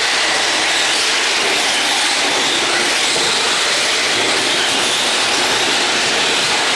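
Radio-controlled trucks racing: a steady, loud, hiss-like din of small motors and tyres on the track, with faint whines coming in near the end.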